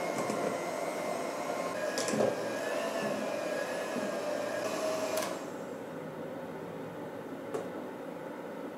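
Electric hand mixer running steadily with a motor hum, its beaters working ground nuts into thick chocolate cake batter; it stops about five seconds in.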